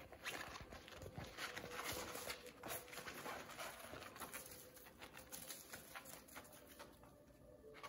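Miniature schnauzer puppies' paws and claws scrabbling and pattering on floor mats and pee pads as they play, an irregular run of small clicks and scuffs, busiest in the first half and thinning out near the end.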